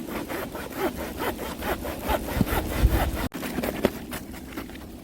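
A hand saw cutting through a fallen pine log in quick, even back-and-forth strokes, about five a second, with a brief break a little past halfway.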